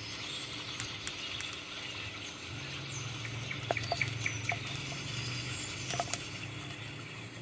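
Faint background ambience: a steady low hum with light hiss, and a few short high chirps and clicks around four seconds in and again near six seconds.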